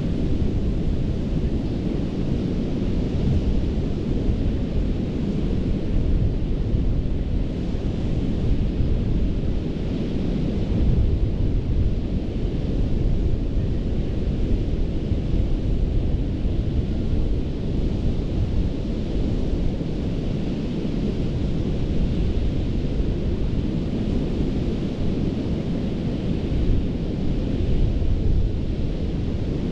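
Ocean surf breaking and washing onto a beach: a steady, deep rush of waves with no pauses.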